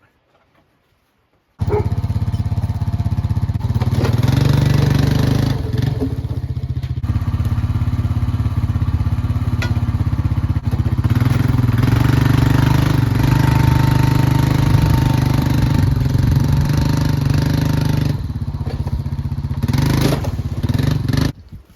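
Small gasoline engine running steadily. It starts abruptly about a second and a half in and cuts off abruptly just before the end.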